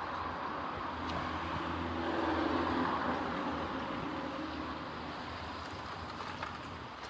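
A vehicle passing, its low running hum swelling to its loudest about two and a half seconds in, then easing off.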